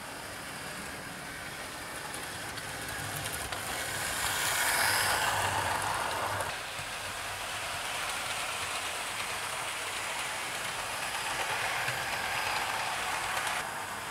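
OO gauge model trains running on the track, including a Hornby Railroad Midland Compound 4-4-0: a steady whirr and rumble of motors and wheels on the rails. It swells to its loudest about five seconds in, then drops suddenly.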